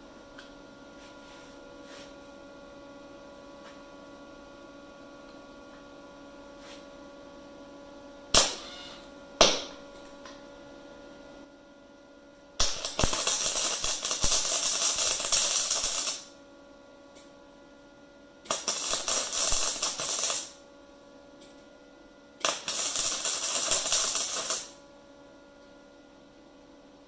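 MIG welder arc crackling and spitting in three bursts of a few seconds each, welding a nylock nut onto a seized rear oil passage plug in a small-block Chevy block so the plug can be turned out. Two sharp clicks come first, over a steady hum.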